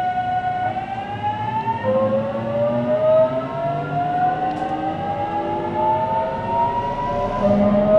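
JR Kyushu 813 series electric train's inverter and traction motors whining as it accelerates, heard from inside the passenger car. A steady electronic tone starts rising about a second in. The pitch pattern shifts again about two seconds in and keeps climbing, over the low rumble of the running gear.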